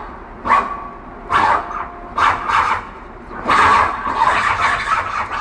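Roland GR-55 guitar synthesizer playing a sound-effect patch triggered from the guitar: a series of short repeated bursts about once a second, coming faster and more continuous in the last couple of seconds.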